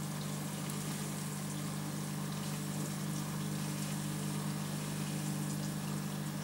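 Aquarium pump humming steadily with water trickling and bubbling in the tank, faint tiny ticks of bubbles over the top.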